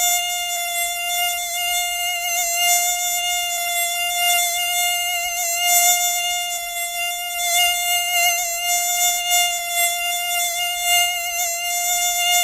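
Mosquito buzzing: a continuous high whine of the wings, holding one pitch with a slight waver and an even level.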